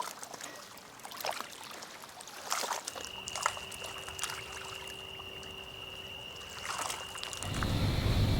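Water trickling and splashing in short irregular strokes. About three seconds in, it gives way to a steady ambience with a faint high whistle-like tone over a low rumble. Near the end, a louder low rumble comes in.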